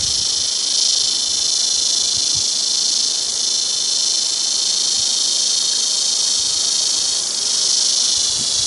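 Steady, high-pitched chorus of crickets trilling without a break.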